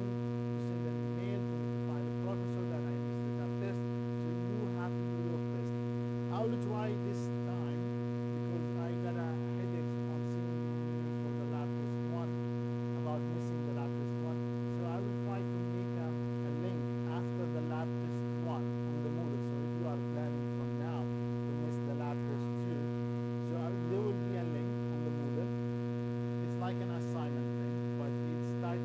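Steady electrical mains hum in the recording's audio chain, with faint scattered background sounds over it.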